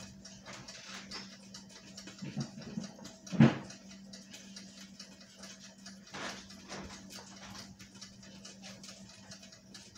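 Quiet kitchen room tone with a steady low hum, broken by a few faint knocks and handling noises. The loudest is a single thump about three and a half seconds in.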